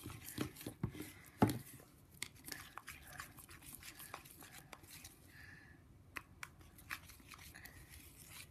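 Thick glue slime being stirred with a spoon in a ceramic bowl: faint, irregular sticky clicks and scrapes, the loudest about one and a half seconds in. The mixture is heavy and nearly set into a clump.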